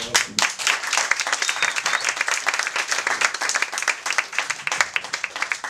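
A small audience applauding with dense, steady hand-clapping.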